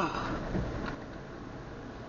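Steady low hum inside a car waiting at a gate, with a short voice sound right at the start.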